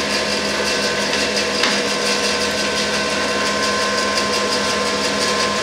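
Woodworking bandsaw's motor and blade running steadily with no wood being cut: an even, whining hum with several steady tones over a hiss, just after being switched on.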